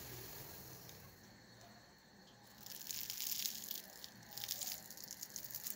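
Rice vadas frying in hot oil with a faint steady sizzle, then, about two and a half seconds in, the crisp fried crust crackling and crunching in irregular bursts as a vada is broken apart by hand.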